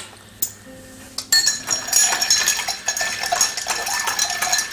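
Bar spoons stirring drinks in two glass mixing glasses, with a rapid, continuous clinking of metal against glass that starts about a second in, after a single click.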